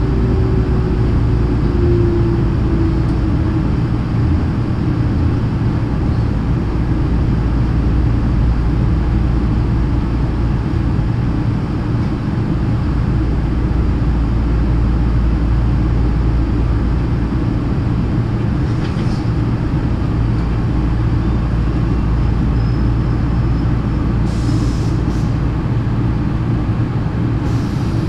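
Hankyu Senri Line electric train running, a steady rumble of wheels on the rails heard from inside the carriage, with a few short hisses near the end.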